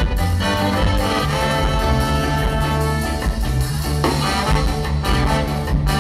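Live band playing with a horn section of trombone, saxophones and trumpets over a steady bass line and drums.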